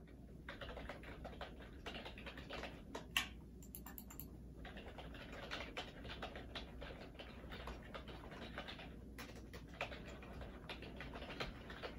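Typing on a ThinkPad laptop keyboard: a quick, continuous run of key clicks that breaks off briefly twice, with one harder click about three seconds in.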